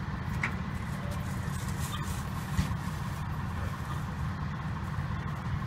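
Vehicle engine idling: a steady low rumble, with a single knock about two and a half seconds in.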